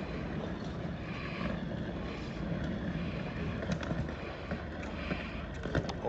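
Steady low rumble and hiss of outdoor ambience, with a few faint clicks in the second half.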